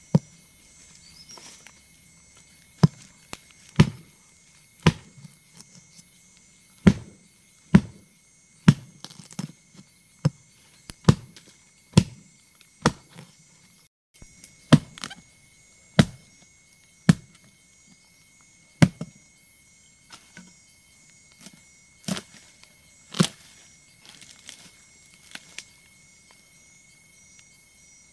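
Chopping: a hand tool strikes again and again, roughly one blow a second with short pauses between runs. A thin steady high tone runs underneath.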